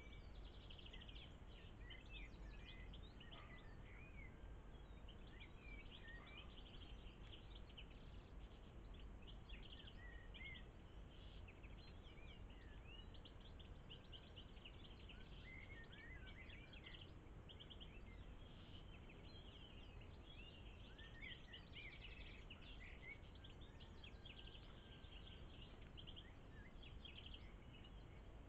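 Faint songbird chirps and quick trills, many short notes from more than one bird, scattered all through, over a steady low background hiss.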